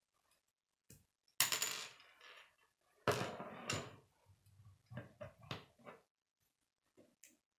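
Plastic K'nex rods and connectors clicking and clattering as they are handled and fitted together on a wooden table. Two louder rattling clatters come about a second and a half and three seconds in, then a few lighter clicks.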